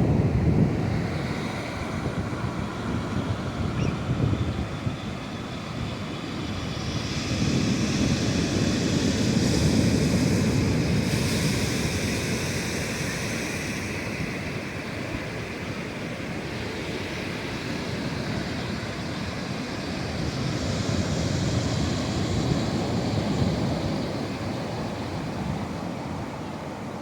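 Sea waves breaking and washing on a shore, a steady rush that swells and ebbs, with two larger swells, one a few seconds in and one near the end.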